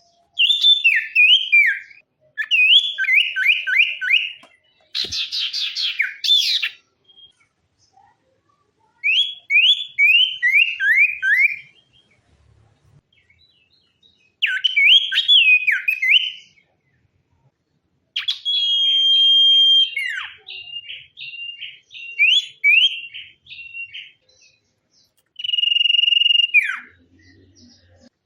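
Sirtu songbird singing in loud phrases of rapid, falling whistled notes, with short pauses between phrases. A harsh buzzy call comes in about five seconds in, and later phrases include long held whistles.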